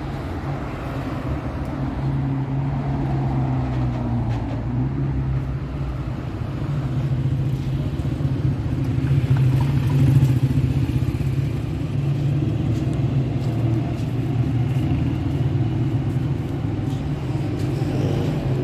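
A motor vehicle running, a steady low drone that swells slightly midway.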